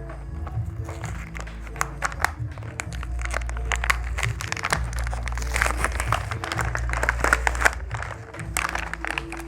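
Background music with a steady low bass line, over the rustling, crinkling and clicking of a toy's plastic packaging being handled and opened.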